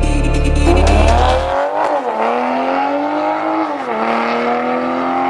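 Background music cuts out about a second and a half in, giving way to a car engine accelerating hard. Its pitch climbs, drops at an upshift about two seconds in, climbs again and drops at a second upshift about two seconds later.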